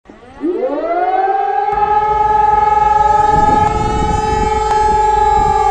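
ESp 750 Maestro electronic civil-defence siren starting up with a quick rising wail, then holding a loud, steady multi-tone note for its test signal; the pitch begins to sag slowly near the end.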